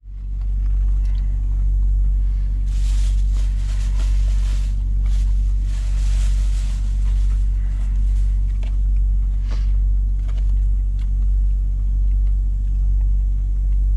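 Steady low rumble of a running vehicle engine, with light rustling and a few clicks in the first half.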